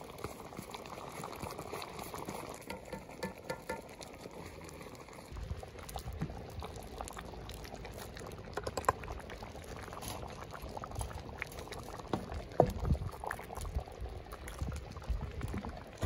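Thick hōtō stew bubbling in a large iron pot over a wood fire. From about a third of the way in come liquid splashes and sharp knocks as noodles and broth are ladled into a wooden bowl.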